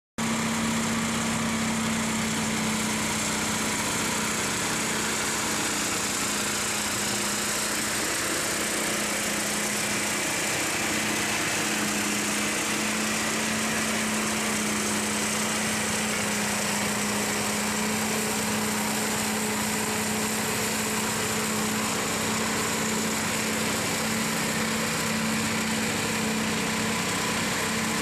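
ATV-towed flail mower's 13 hp petrol engine running at a steady speed while its hammer-flail rotor cuts tall grass.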